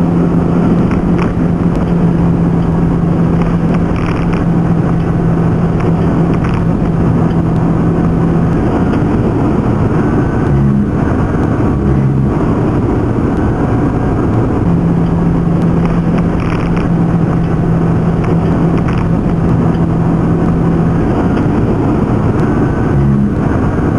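Car driving at speed on an expressway: steady road and engine noise, with a low steady hum that drops out for several seconds about a third of the way in and again near the end.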